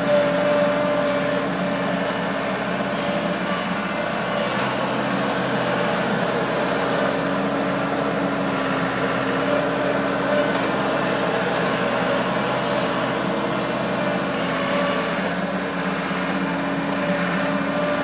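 Engine of a 1980 Case 1845 Uni-Loader skid steer running at a steady speed as the loader works.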